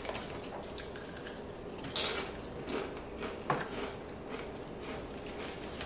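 Crinkly snack-chip bag rustling and crackling as a hand rummages inside for chips, with a couple of sharper crackles about two and three and a half seconds in.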